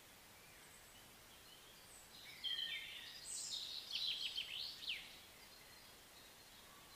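A songbird sings one short phrase, about two and a half seconds in: high whistled notes, then a run of quick downward-sweeping notes. A steady outdoor hiss runs underneath.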